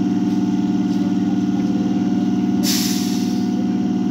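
Old Indian Railways EMU electric local train standing at the platform, its onboard machinery giving a loud steady hum. About two and a half seconds in comes a sharp hiss of compressed air lasting under a second.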